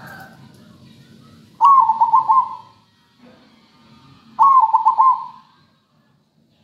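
Zebra dove (perkutut) singing: two loud phrases about three seconds apart, each a quick stuttering run of coo notes lasting about a second, over a faint low hum.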